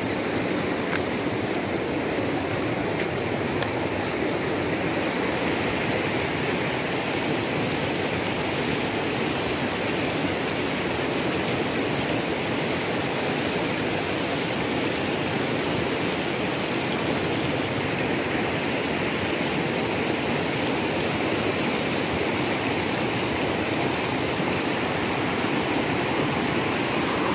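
Shallow rocky river running over rapids: a steady, even rush of water.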